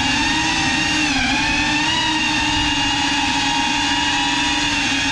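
GEPRC Cinelog 35 cinewhoop's motors and propellers whining steadily in flight, the pitch dipping briefly about a second in.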